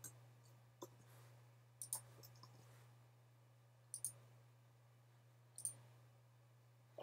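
A handful of faint single clicks, a second or two apart, from operating a laptop's keys and pointer, over a low steady hum.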